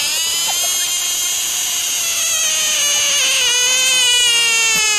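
Grey squirrel giving one long, unbroken call whose pitch slowly falls.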